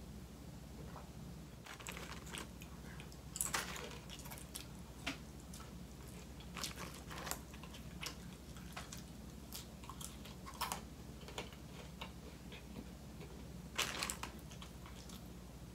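A person chewing and biting fries close to the microphone: wet mouth clicks and small crunches, loudest about three and a half seconds in and again near the end.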